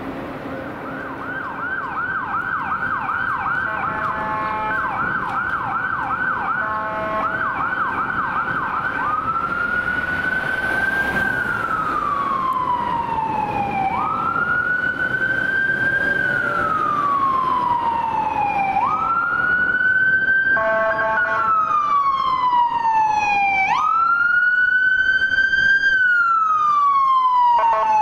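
Ambulance electronic siren on a fast yelp, switching about nine seconds in to a slow wail that rises and falls every five seconds or so. A few short horn blasts sound over it, and it grows louder as the ambulance approaches.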